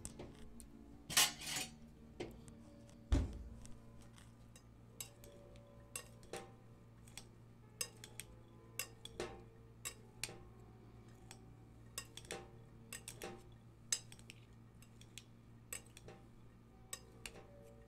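Metal spoon stirring boiled chickpeas and diced potato in a glass bowl: irregular clinks and scrapes of the spoon on the glass, with a louder clatter about a second in and a dull knock about three seconds in.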